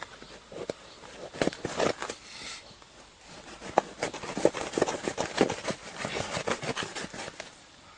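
Irregular rustling and scraping with scattered sharp clicks as an animal hide is pulled and worked by hand while being sewn around a person.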